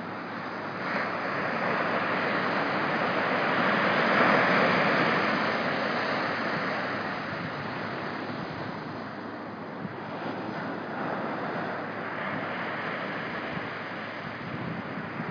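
Small surf breaking on a beach: a steady wash of waves that builds to a peak a few seconds in and eases off, then swells again more softly near the end, with some wind on the microphone.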